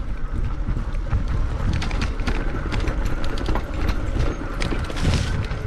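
Bicycle rattling and knocking as it rides over a rough dirt trail, with a steady low rumble of wind on the microphone.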